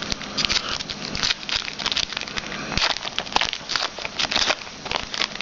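Crinkling and crackling of a trading card pack wrapper being handled and torn open, an irregular run of small crackles.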